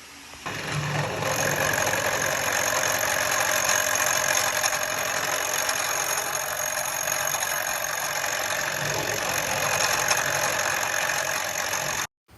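Bridgeport milling machine running with a 3/4-inch end mill cutting a bed plate: a loud, steady machining noise of several held tones over a hiss. It comes in about half a second in and stops suddenly near the end.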